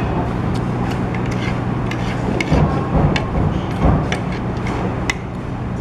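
Eatery background: a steady low hum with scattered light clicks and knocks, like utensils on bowls, and a few brief louder stretches in the middle.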